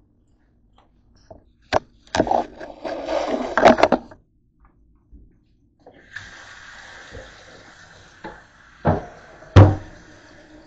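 A short burst of clattering knocks, then a kitchen faucet running a steady stream into a stainless steel sink, with a few sharp knocks over the running water, the loudest near the end.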